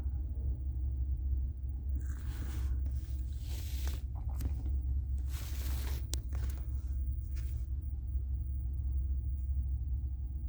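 Steady low rumble aboard a cruise liner at sea, with two louder rushing swells of noise about two and five seconds in.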